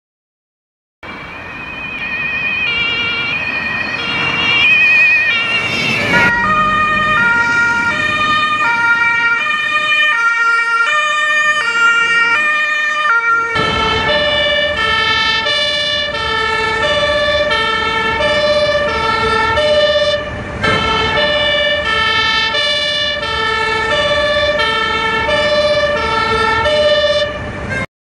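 German police two-tone siren (Martinshorn), alternating steadily between a high and a low note and switching about every three-quarters of a second. It opens with a wavering tone that grows louder for a few seconds, and a low vehicle rumble sits under it in the second half.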